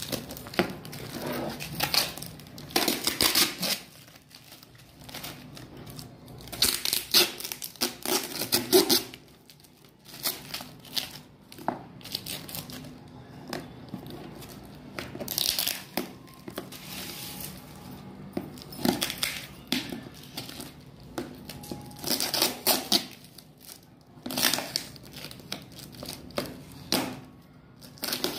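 Plastic parcel wrapping and packing tape crinkling and tearing in irregular bursts as a package is unwrapped by hand.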